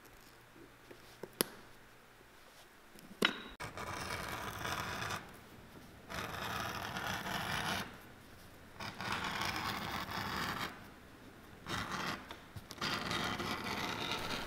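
A small knife drawn along a leather strip on a wooden bench, cutting a new welt: four long scraping strokes of about two seconds each, after a couple of sharp clicks.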